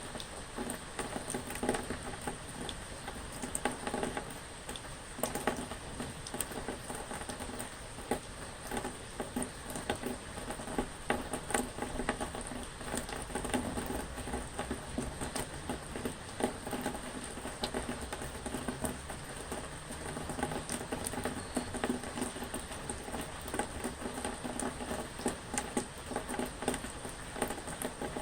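Rain pattering steadily, with many separate drops striking a surface.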